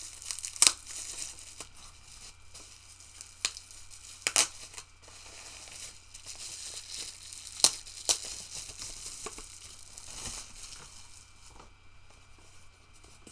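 Plastic packaging crinkling and tearing as it is opened by hand, with several sharp snaps along the way. The rustling dies down near the end.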